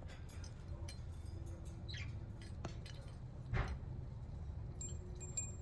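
Caged budgies making a brief high chirp and scattered clicks and taps, with a light metallic ringing near the end.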